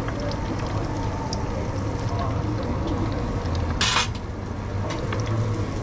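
Cooking utensils at work: a metal spatula and frying pan with small clinks and clicks as a fried egg is lifted from the pan onto a bowl of rice. There is a brief, loud, noisy rasp about four seconds in, as the pan goes back onto the induction hob. A steady low hum runs underneath.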